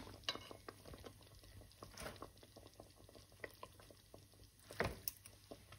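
Thick korma gravy bubbling in an aluminium pot, with scattered small pops, as raw chicken pieces are lowered in with tongs. A louder soft thump comes about five seconds in.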